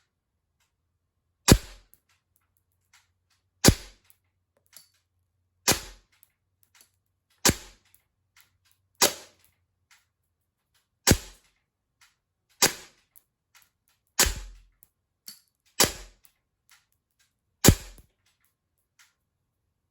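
Umarex CO2 airsoft pistol firing ten single shots at a steady pace, one every one and a half to two seconds, each a sharp crack of released gas.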